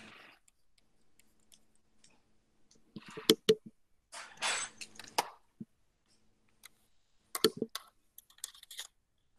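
Handling noise picked up by a video-call microphone: a few sharp clicks about three seconds in, a short rustle, then more clicks near the end, over a faint low hum.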